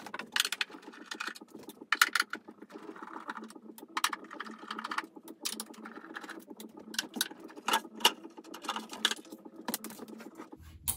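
Phillips screwdriver backing out the small screws that hold a plastic side panel on a Behringer X32 mixing console: a steady run of short clicks and scrapes, metal working against metal and plastic.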